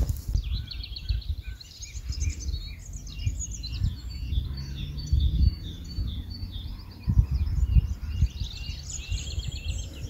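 Several songbirds singing at once in a morning chorus, with many overlapping chirps and trills. Underneath is a low rumble that comes and goes, loudest about seven to eight seconds in.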